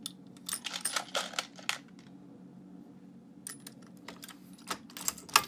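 Dillon 550 progressive reloading press and brass 9mm cases giving off a run of sharp metallic clicks and clinks as the press is worked, in two clusters, the sharpest click near the end.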